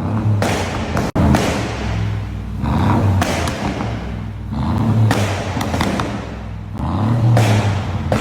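Mercedes-Benz G550's twin-turbo V8, ECU-tuned for crackles, revving in repeated swells. A string of sharp pops and crackles from the exhaust follows each one as the throttle closes.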